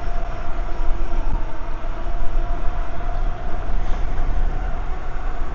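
Steady rumbling noise from a moving electric bike, with wind on the microphone and a constant whine, while a train approaches on nearby tracks.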